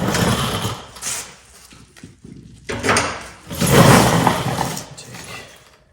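Handheld gas torch flame hissing in two bursts, the first about a second long and the second about two seconds, heating a battery cable lug for soldering.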